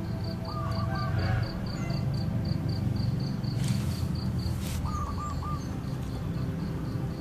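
An insect chirping in a steady high-pitched pulse, about four or five chirps a second, while a bird gives a short call phrase about half a second in and again near five seconds, over a steady low rumble. A brief hiss comes through a little past halfway.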